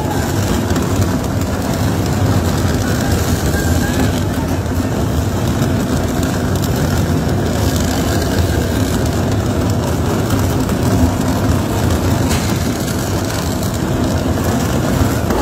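Tunnel boring machine grinding through the rock face as it breaks through into the shaft: a loud, steady, even rumble, with water from hoses spraying onto the rock.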